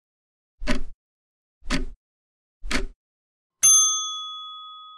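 Quiz countdown timer sound effect: a tick about once a second, three times, then a single bell ding about three and a half seconds in that rings on and fades, marking the end of the answer time.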